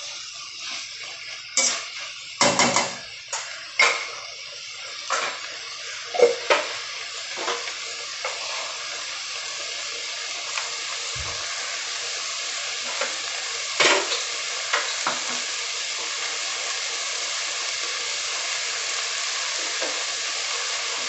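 Chopped vegetables and tomato sizzling as they are sautéed in a pan, with the stirring spoon knocking and scraping against the pan several times in the first few seconds and again about two-thirds of the way through. The sizzle grows a little louder toward the end.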